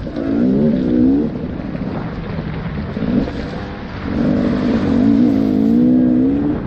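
Dirt bike engine under way, revving up and down with the throttle. It runs hard for about the first second, eases off for a few seconds, then is held at high revs again from about four seconds in.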